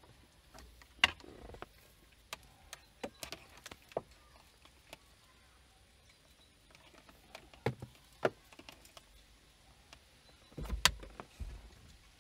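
Hands handling a dash camera's thin power cable and small plastic mount parts inside a car: scattered light clicks, taps and knocks, the sharpest about a second in and near the end, with a short low rustle just before the last one.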